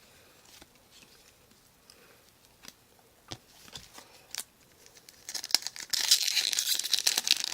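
A few faint clicks of cards being handled, then from about five seconds in a loud, continuous crinkling and tearing as a trading-card pack's wrapper is torn open.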